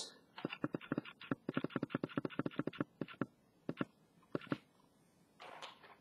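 Chalk tapping and clicking against a blackboard while writing an equation: a quick run of sharp taps for about three seconds, a few more spaced taps, then a short scrape near the end.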